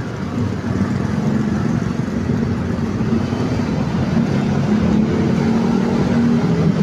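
Motorcycle engines running as a motorcycle rides past close by and away, over steady traffic noise; the low engine drone grows louder about five seconds in.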